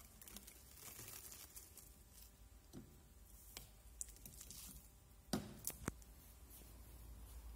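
Clear plastic stretch film crinkling and rustling as it is pulled off a roll and laid taut over a plate. Three sharp clicks come close together about five and a half seconds in.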